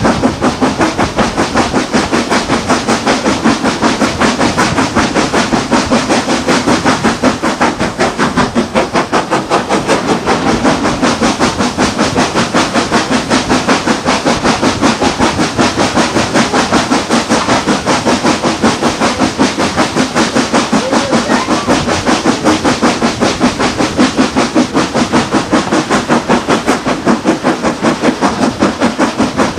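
Steam locomotive working hard, its exhaust thrash a steady, rapid beat of chuffs, heard from a carriage window behind the engine with the train's running noise mixed in.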